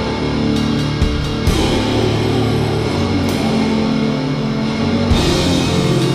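Funeral doom metal: slow, heavily distorted guitar chords held over drums, with cymbal crashes a few times.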